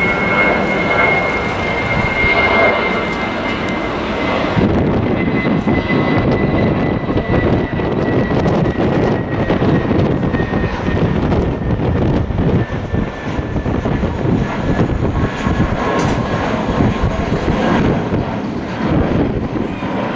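Philippine Airlines Airbus A321 twin jet engines at climb power just after takeoff: a loud, steady rumble with a high whine that slowly falls in pitch as the airliner climbs away.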